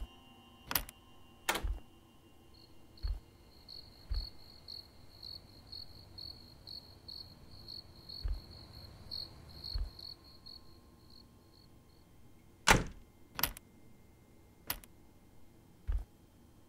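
Sparse horror-film sound: two sharp knocks about a second in and three more between about 13 and 15 seconds, with soft low thuds between them. A high, evenly pulsed chirp, a few pulses a second, runs from a couple of seconds in to about twelve seconds.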